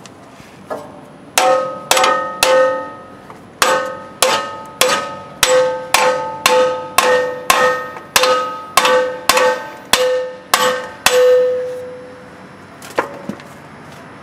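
Hammer striking a steel axle truss plate, about twenty blows roughly two a second, each one ringing with a clear metallic tone, the last one ringing out longest. The truss is being tapped down to seat it on the axle housing before welding.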